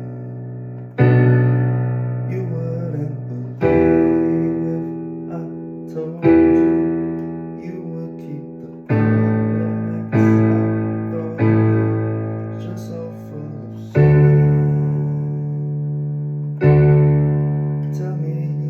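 Keyboard playing sustained chords: each chord is struck, rings and fades, with a new one about every two to three seconds.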